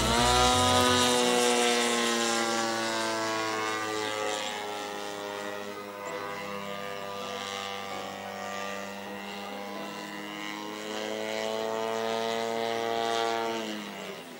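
DLE 60cc twin-cylinder gas engine of a radio-controlled Extra 330 aerobatic plane in flight. Its pitch jumps up at the start, sags a little, climbs again through the manoeuvres and falls away near the end.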